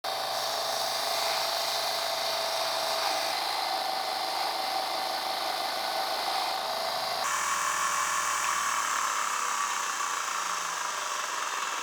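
Electric power tool running steadily, a motor whine over a hiss. The sound changes abruptly about seven seconds in to a different, similar steady tool sound.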